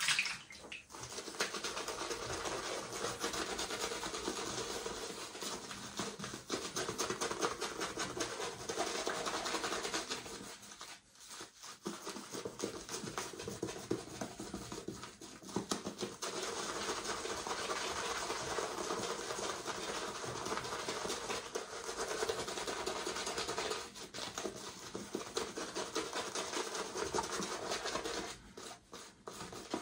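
Synthetic shaving brush swirling BullDog soap into lather with little water, a steady scratchy swishing of bristles that stops briefly a few times.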